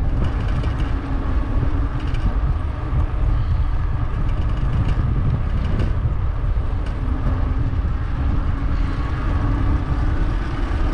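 Wind and road rumble on an action camera's microphone from a moving electric bike: a steady, fluttering low rumble, with a faint hum in the background at times.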